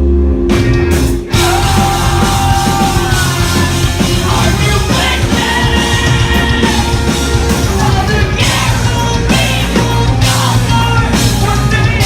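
Live post-hardcore band playing at full volume: distorted electric guitars, bass and pounding drums with sung lead vocals. The band breaks off briefly about a second in and then crashes back in.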